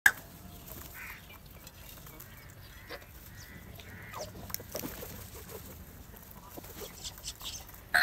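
House crows giving a few scattered caws while feeding, with light taps from beaks pecking at the food. A sharp click right at the start is the loudest sound.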